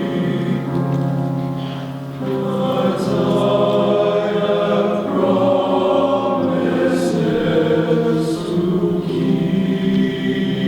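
Men's chorus singing sustained chords in parts, with sharp "s" consonants cutting through a few times.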